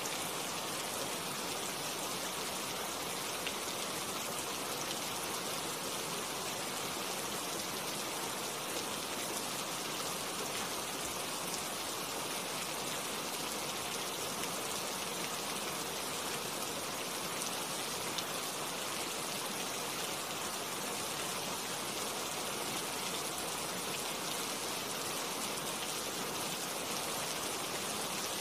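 Steady rain falling on tree leaves, an even, unbroken hiss.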